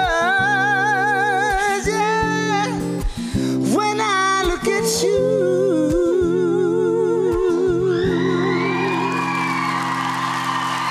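A young woman singing a slow ballad with vibrato over sustained guitar chords; about eight seconds in the song ends and an audience breaks into cheering and applause.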